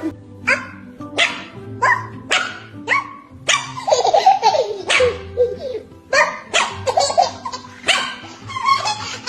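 A dog barking over and over, about one to two barks a second with short pauses, with background music underneath.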